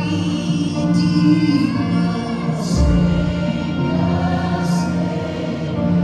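Live gospel worship music: a choir singing held notes over a sustained band accompaniment, with two short cymbal-like splashes near the middle.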